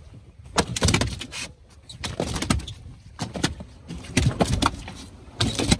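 Irregular thumps and knocks on a fiberglass boat deck, about ten spread unevenly, over a low rumble.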